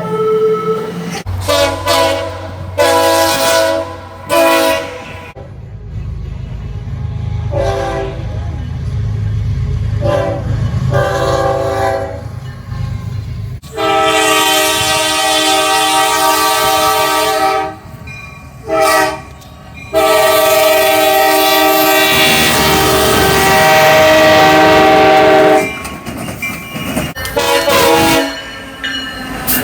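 Train air horn sounding a series of short and long blasts, each a chord of several notes, the two longest held for about four and five seconds in the second half. A low rumble of the train runs under the blasts in the first half.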